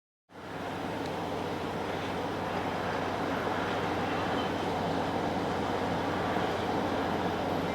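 Amtrak passenger train running by with a steady rumble and rail noise.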